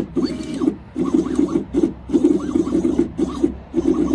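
Two stepper motors turning an Etch-a-Sketch's knobs under CNC control, running in short moves with brief pauses between them. The whine rises and falls in pitch as the motors speed up and slow down.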